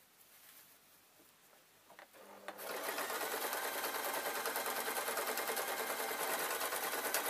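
Singer electric sewing machine stitching through thick faux fur fabric. It starts about two and a half seconds in and runs at a steady, fast stitching speed.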